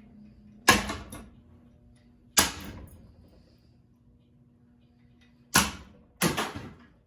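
A ceiling fan being smashed: four hard blows, each a sharp crack with a short rattling tail, the first about a second in, the second a little later, and a close pair near the end.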